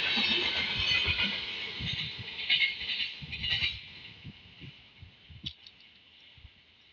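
Express train passing at speed: a rushing hiss with wheels knocking over the rail joints, and a few louder clacks around the middle, then the noise fades over a couple of seconds as the last coach moves away.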